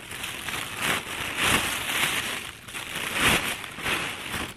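Loud rustling noise coming in uneven swells about once a second, with two deeper thumps, about a second and a half in and again past three seconds.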